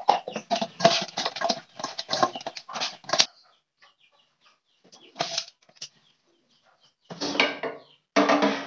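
Bird calls in a quick run of short notes for about three seconds, then quiet, then a few shorter bursts of calls near the end.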